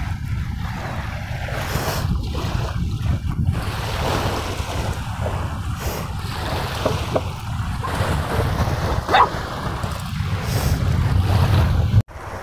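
Wind buffeting the microphone over the steady wash of the fast-flowing river at the bank, with one short knock about nine seconds in.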